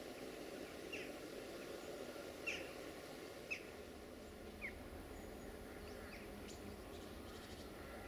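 Small bird chirping: a series of short, sharp calls, each sweeping quickly downward, roughly one a second, over faint steady background noise.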